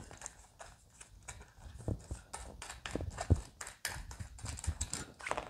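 Irregular light clicks and taps of small metal guitar parts, potentiometers and a control plate, being handled on a padded work mat, with a sharper knock just over three seconds in.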